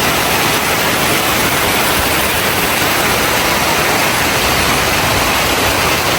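Heavy rain pouring down: a loud, steady hiss that cuts off suddenly near the end.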